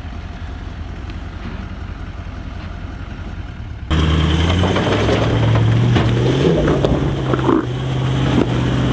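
Toyota LandCruiser 200 series engine running low and steady while the 4WD sits in a rocky rut. About four seconds in it turns much louder, with the revs rising and falling as the driver gives it a bump to climb the step, and a few sharp clicks of stones.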